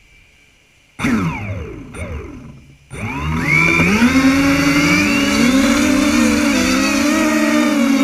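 Hexacopter's electric motors and propellers: two short spin-ups about one and two seconds in that wind down again, then from about three seconds in the motors whine up to speed and hold a loud steady buzz, the pitches of the six rotors wavering against each other.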